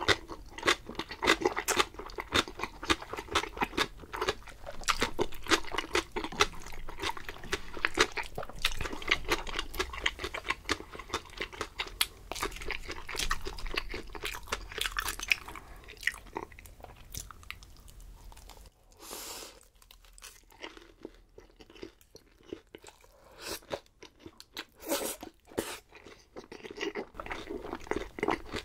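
Close-miked eating: crunchy fried food being bitten and chewed, with dense crisp crunches for the first half. The chewing then turns sparser and quieter for several seconds, and quick crunching picks up again near the end.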